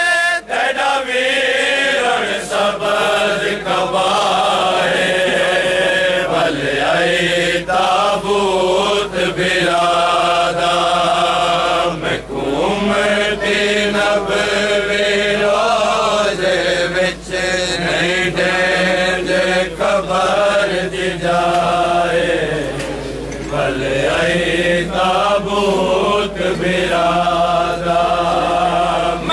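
A crowd of men chanting a Shia mourning lament together in long, drawn-out sung phrases.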